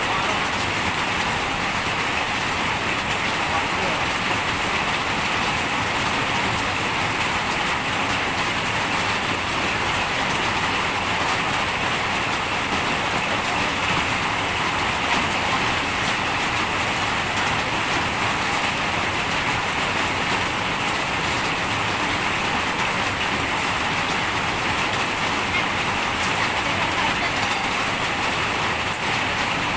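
Steady rain falling, an even unbroken hiss that keeps the same strength throughout.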